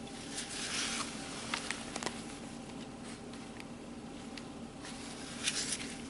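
Faint handling noise at a handheld scan tool: a few light stylus taps on its touchscreen and a brief rustle, over a steady low hum.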